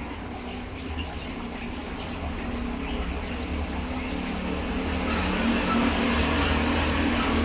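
Water splashing and gushing from a submersible pond pump's outlet over a steady low hum. The water noise grows louder about five seconds in.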